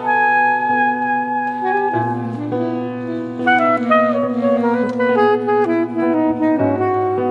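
Live reed-instrument music: several held saxophone-like notes layered over one another above a sustained low drone. The drone drops in pitch about two seconds in and shifts again near the end.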